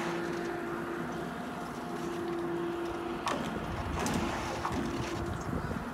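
Riblet double chairlift's top drive terminal running, a steady mechanical hum with a held tone from the drive machinery and turning bullwheel. A little past halfway come a few sharp knocks and a short clatter as a chair swings around the bullwheel.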